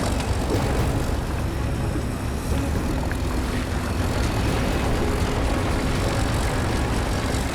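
Diesel engines of Caterpillar D9 bulldozers running steadily under load, a dense low rumble, as the machines pull together on a stuck dozer.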